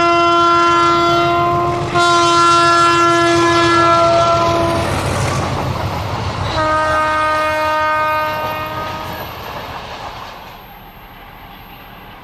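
Freight train locomotive horn sounding three long blasts over engine rumble and wheel clatter, the third blast lower in pitch as the train passes. The train then fades away near the end.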